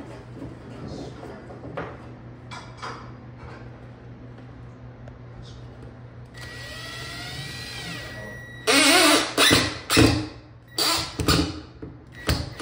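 Ridgid cordless impact driver driving screws through drywall into wood backing. About six seconds in, its motor whines, rising and falling, for a couple of seconds. After that come several short loud bursts of driving.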